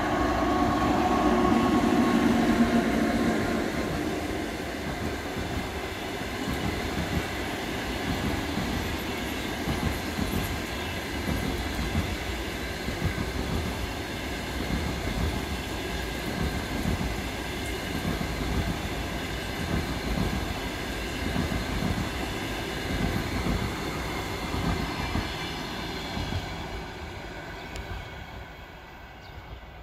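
EP2K passenger electric locomotive going by with its train. It is loudest in the first few seconds with a steady hum, then the carriages follow with a steady rumble and the rapid clatter of wheels over rail joints, fading away near the end.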